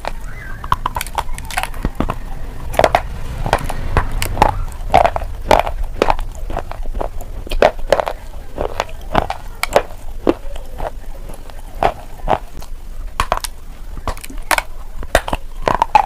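Close-up biting and crunching of a hard white chalk stick: many sharp, irregular cracks as it is bitten and chewed.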